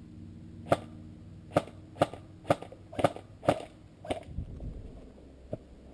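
Airsoft rifle firing single shots: about seven sharp cracks roughly half a second apart, then one more after a short pause near the end.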